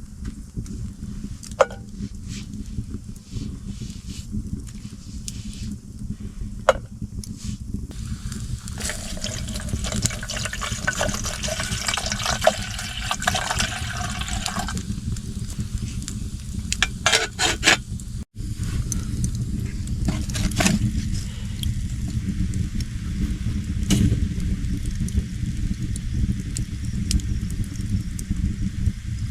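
Water splashing and trickling for several seconds in the middle, over a steady low rumble, with a few scattered clicks.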